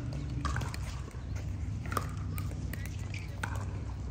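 Pickleball paddles striking a plastic ball: sharp pops about every second and a half, over a steady low hum.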